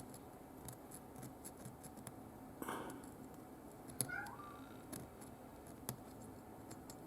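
Faint, scattered ticks and short scrapes of a small hand file working the diecast metal base of a toy car, with a brief faint high glide about four seconds in.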